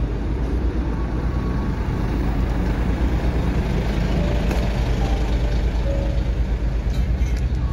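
Heavy diesel construction machinery running steadily, a loud low engine drone.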